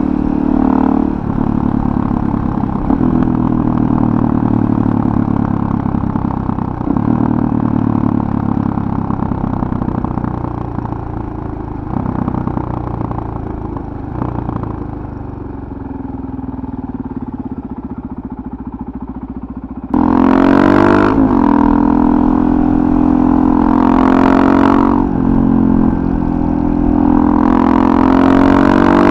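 Suzuki DR-Z400SM single-cylinder four-stroke engine through a full FMF Powercore 4 exhaust. It runs steadily at cruising speed, then eases off and drops lower and quieter for several seconds. About twenty seconds in it turns suddenly loud under hard throttle, the pitch rising again and again as it revs up through the gears.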